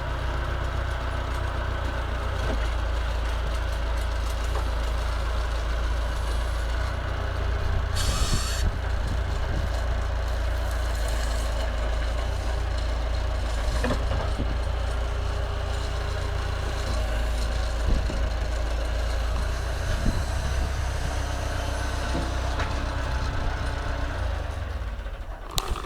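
Massey Ferguson 50HX backhoe loader's diesel engine running steadily, with a short hiss about eight seconds in and a few light knocks. The sound dips near the end.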